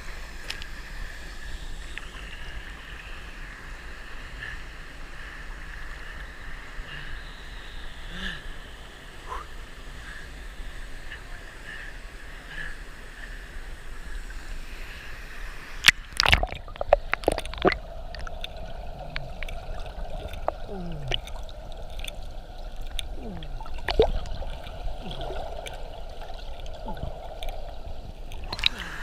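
Waterfall stream water running and gurgling steadily, with a few sharp knocks about halfway through, after which the sound turns muffled.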